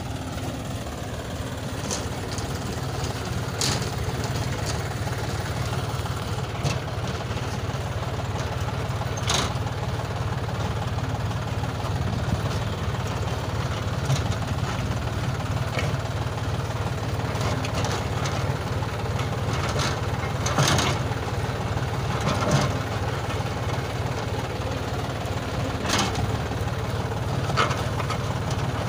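John Deere 5105 tractor's three-cylinder diesel engine running steadily while it pulls a tine cultivator and fertilizer drill, with occasional sharp clicks and rattles.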